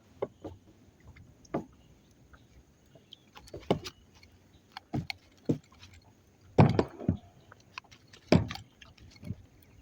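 Scattered knocks and thumps on a kayak as a freshly landed boga is handled and struggles, the loudest a little past the middle and again near the end.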